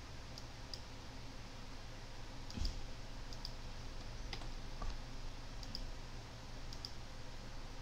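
Faint, scattered computer mouse clicks over a low steady hiss, with two soft low thumps about two and a half and five seconds in.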